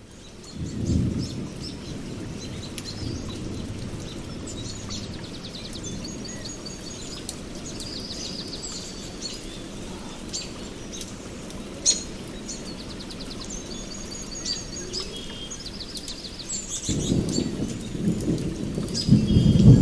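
Steady rain with rumbles of thunder: a short rumble about a second in, and a longer one building near the end. Birds chirp throughout.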